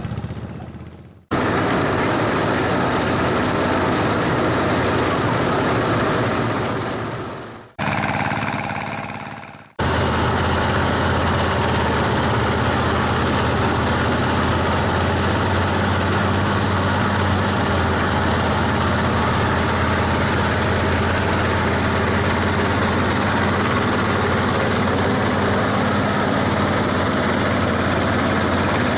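Engine of rice-harvesting machinery running steadily. It drops out briefly three times in the first ten seconds, then runs unbroken.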